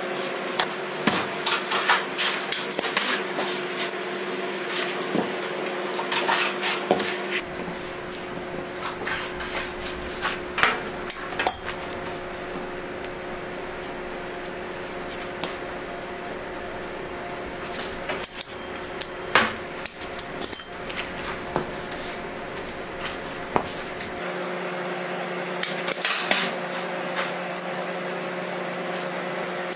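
Hand work on hard candy at a steel work table: scattered clicks, taps and clatters of tools and candy against the table, coming in clusters, over a steady hum.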